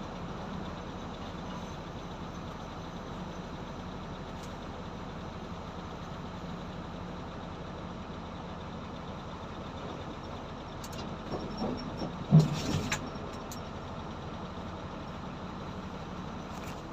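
Excavator's diesel engine running steadily, with a short run of knocks about eleven seconds in and one loud clank about twelve seconds in.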